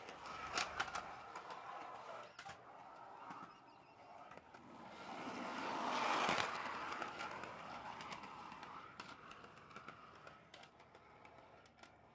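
Skateboard wheels rolling on a concrete sidewalk, with a few sharp clicks near the start. The rolling grows louder to a peak about halfway, then fades.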